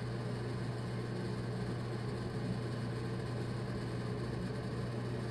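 Steady low hum with a faint even hiss, unchanging in level.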